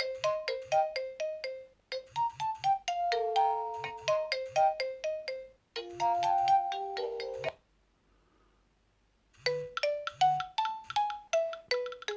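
A Nokia 6230's speaker plays polyphonic ringtones one after another: bright melodies of quick short notes over a low beat. Each is cut off abruptly as the next starts, and about two-thirds of the way through a pause of roughly two seconds comes before the last one begins.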